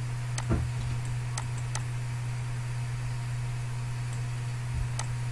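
A computer mouse clicking about four times over a steady low electrical hum.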